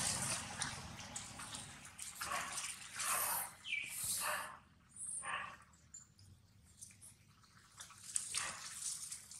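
Leaves rustling and scrabbling on tree bark as young macaques climb and tussle in a tree, in irregular bursts that die down about five seconds in.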